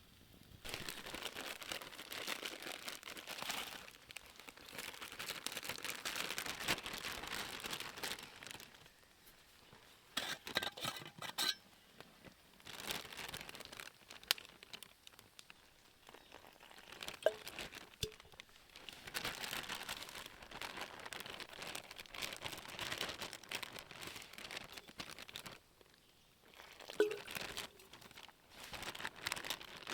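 Crinkling, rustling handling noise in long stretches, with scattered sharp clicks and knocks.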